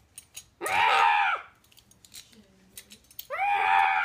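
A young child screaming twice, each a high-pitched cry of under a second that rises and then falls, with a quiet gap of about two seconds between.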